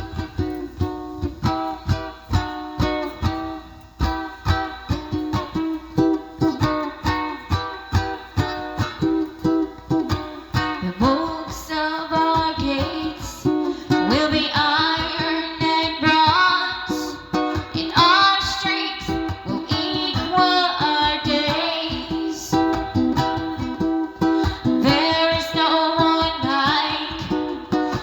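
A song opening with rhythmically strummed plucked strings, with a singing voice coming in over them about twelve seconds in.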